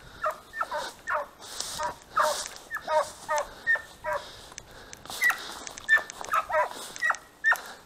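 Hunting dog yelping: a string of quick, high, short yelps, each falling in pitch, coming irregularly a few to the second.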